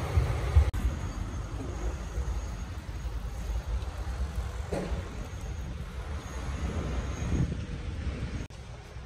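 Low, steady rumble of a moving vehicle, which drops off suddenly near the end.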